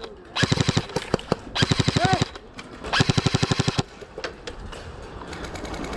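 Airsoft gun firing on full auto: three short rapid bursts of roughly half a second each, with a couple of single shots between the first two.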